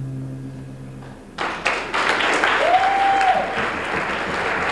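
Final acoustic guitar chord rings and fades out, then audience applause breaks out about a second and a half in. A single whoop rises from the crowd partway through.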